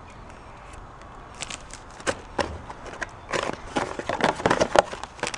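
Hands handling product packaging: crinkling of a plastic bag and rustling of a cardboard box insert, as irregular crackles and rustles starting about a second and a half in.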